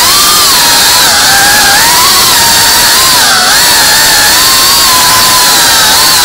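FPV racing quadcopter's brushless motors and propellers whining loudly over a rush of prop noise, the pitch dipping and rising as the throttle changes in flight.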